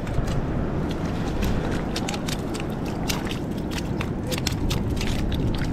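Boots stepping on barnacle-covered shore rock: irregular sharp crunches and clicks over a steady low rumble.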